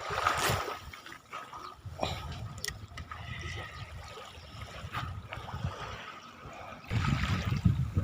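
Shore water lapping and trickling, with a few faint clicks. A louder low rumbling noise comes in about seven seconds in.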